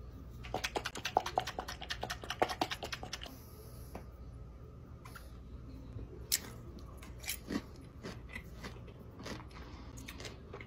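A person biting and chewing crunchy sauce-coated pickle slices. A quick run of clicks and crunches comes in the first three seconds, then scattered single crunches.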